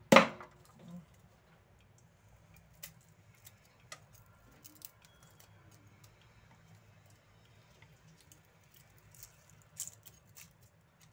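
A cleaver knocks once, loudly, on a chopping board right at the start. Faint, scattered small taps and clicks follow as garlic cloves are handled on the board.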